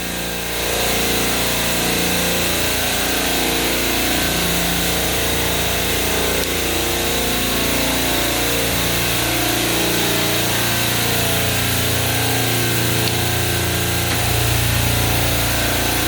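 Compressors of a refrigeration rack running together with a steady hum and hiss. About a second in, one more compressor starts and the level steps up.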